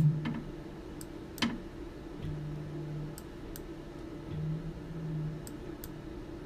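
Scattered sharp clicks, about seven of them, some in pairs, the loudest about a second and a half in, from the operator working the controls of an X-ray inspection machine, over the machine's steady hum. Twice a low steady drone lasts about a second.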